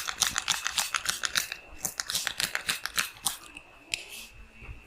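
Fast rhythmic percussive tapping from massage hand strokes, sharp slaps at about seven a second that slow and thin out after about a second and a half into a few scattered taps. A faint steady high tone runs underneath.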